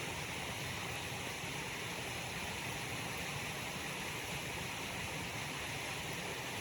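Waterfall rushing in a steady, even hiss.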